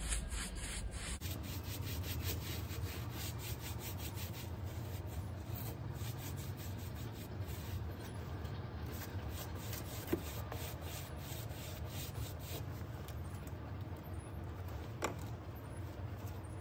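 A paintbrush wet with rust neutralizer scrubbing back and forth over a rusty steel plate: quick, scratchy brush strokes, dense at first and thinning out in the second half, with a couple of light taps.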